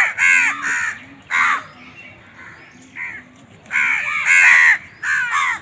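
Crows cawing: harsh calls in quick runs of two or three, with a lull a little after a second in and a denser cluster of calls near the middle.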